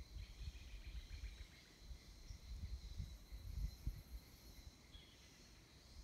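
Faint outdoor nature ambience: a steady high insect drone with a few faint bird chirps. Irregular low rumbles come and go in the first four seconds.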